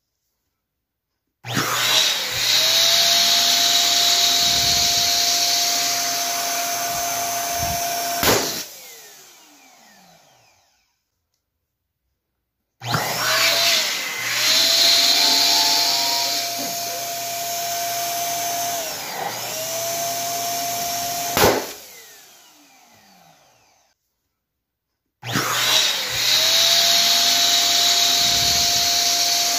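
Electric balloon pump running with a steady motor hum and rushing air as it inflates latex balloons, the pitch settling just after each start. Twice a balloon bursts with a sharp pop, and the motor then winds down with a falling pitch. A third inflation starts near the end.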